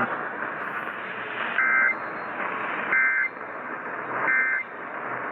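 Three short Emergency Alert System end-of-message data bursts (the SAME "NNNN" tones), each a two-pitched warbling chirp about a third of a second long, spaced about 1.3 seconds apart over steady radio hiss. They signal the end of the weather warning broadcast.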